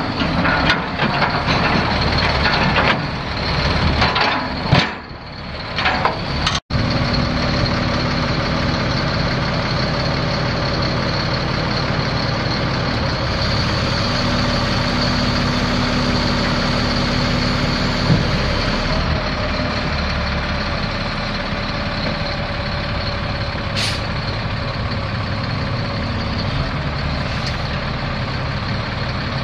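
Caterpillar 3126 inline-six turbo diesel of a Sterling LT7500 dump truck, running steadily at a constant speed. The sound is choppy with a brief dropout in the first several seconds, then even.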